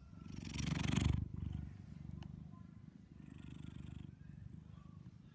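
Orange tabby domestic cat purring steadily, the mic held close against its fur. A brief louder swell of noise about a second in.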